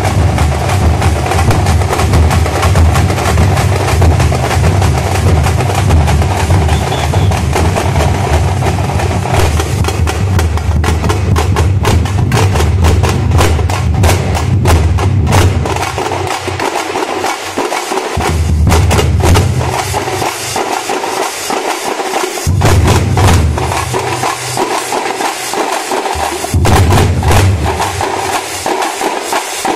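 A drum troupe playing: large bass drums on carts and handheld thappu frame drums beaten with sticks in a fast, dense rhythm. About halfway through, the bass drums start dropping out for a second or two at a time, leaving the frame drums playing alone, then come back in.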